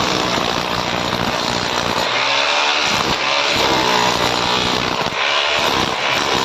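Buildskill BGBH26RE rotary hammer drill in chisel mode, hammering a groove into a wall, running continuously with its motor pitch wavering under load.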